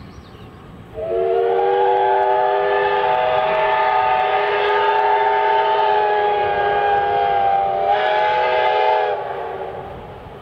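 Steam whistle of the SNCF 141.R.1244 Mikado locomotive giving one long blast of about eight seconds. Several tones sound together, brightening briefly just before it shuts off and dies away.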